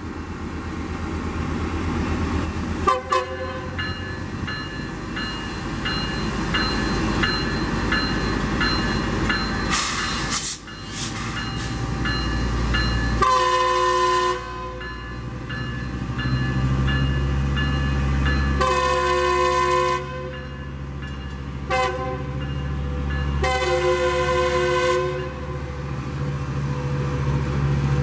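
A Metrolink diesel train is moving, its engines running under a rhythmic bell that rings for the first half. The air horn sounds a short toot early on, then the long–long–short–long grade-crossing signal in the second half.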